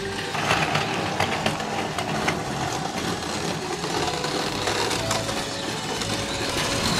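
Battery-powered Plarail toy trains running on plastic track: a steady small-motor whir with the rattle of wheels on the rails.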